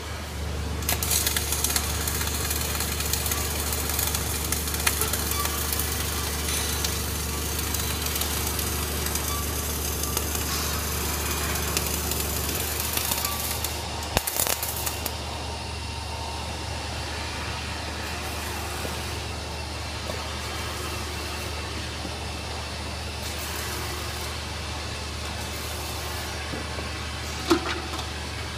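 Flux-cored arc welding: the arc's dense, steady crackle starts about a second in and runs for roughly twelve seconds, then stops with a few pops, over a constant low hum. A single sharp click comes near the end.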